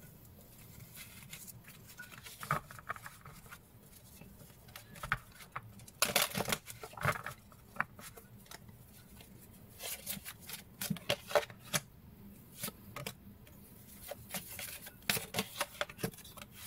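A deck of oracle cards being shuffled by hand: crisp, irregular card flicks and rustles that come in several clusters.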